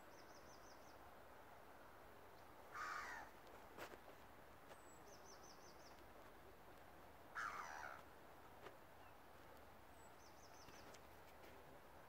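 Gulls giving two harsh calls, each about half a second long and a few seconds apart, over a faint steady hiss.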